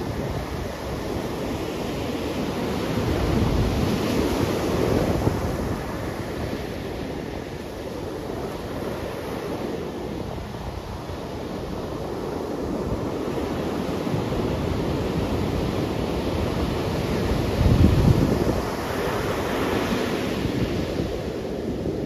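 Sea surf breaking and washing up a sandy beach. The sound swells and ebbs with the waves, a louder crash about four seconds in and the loudest one near the end.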